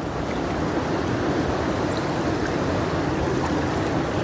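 Steady rush and slosh of water as a person wades through a shallow lagoon.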